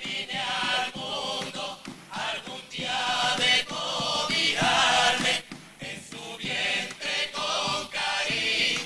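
A carnival comparsa choir singing together in harmony, phrase after phrase with short breaks between lines.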